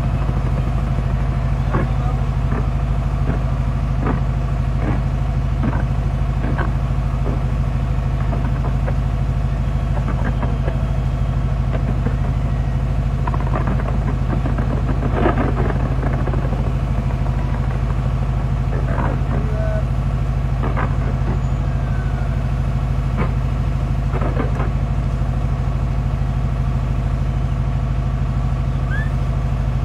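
Large fireworks display: a constant heavy low rumble with irregular bangs and crackling bursts every second or two, densest about halfway through.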